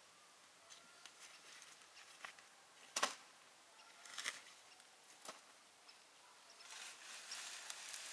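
A few sharp knocks and clatters as a plastic crate is taken off a wheelbarrow and set down, the loudest about three seconds in. From about two-thirds of the way through, dry leaves rustling and scraping under a rake, growing louder.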